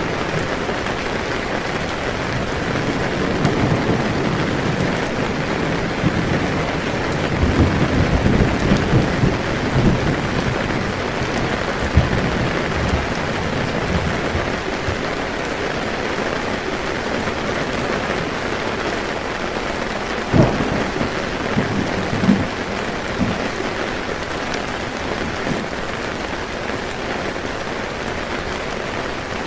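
Torrential rain pouring steadily on a camping tent, with thunder: a low rumble building and rolling through roughly the first ten seconds, then sharp thunderclaps about twelve, twenty and twenty-two seconds in.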